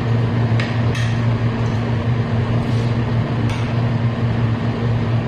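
A steady low mechanical hum runs throughout. A few light clicks of a metal fork and spoon against a plate come about half a second in, at one second, and again at three and a half seconds.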